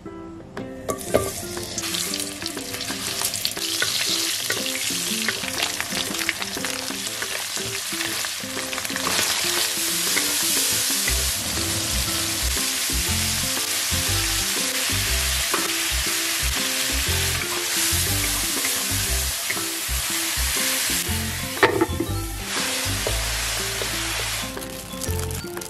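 Crayfish sizzling in hot oil in a wok as they are stir-fried, a dense steady sizzle, with one sharp tap near the end. Background music with a beat plays underneath.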